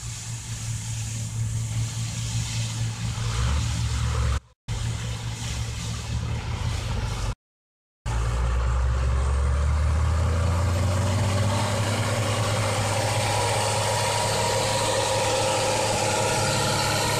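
Ursus 1604 tractor's six-cylinder diesel engine working at full power, pulling two grain trailers. The sound cuts out briefly twice; after the second break the engine note rises and then holds steady and loud as the tractor draws close.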